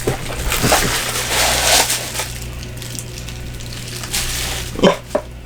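Plastic packaging and bubble wrap rustling and crinkling as an alarm clock is unpacked from its box, loudest in the first two seconds and then quieter.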